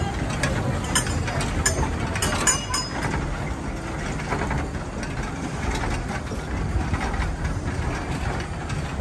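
Amusement-ride machinery running: a steady low rumble, with a few light clicks about one to three seconds in.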